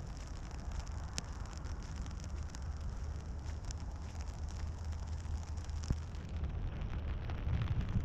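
Rain falling on an open umbrella held close, with sharp drop ticks now and then. Under it runs a steady low rumble of wind on the microphone that grows louder near the end.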